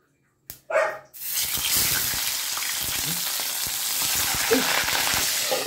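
Yellowfin tuna slices sizzling as they go into hot oil in a wok: a steady frying hiss thick with crackles and spattering oil, starting about a second in.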